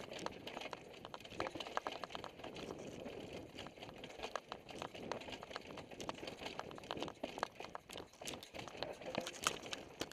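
Mountain bike clattering down a rocky dirt trail: a steady run of irregular clicks, knocks and rattles from the bike and tyres hitting rocks, with a sharp knock near the end.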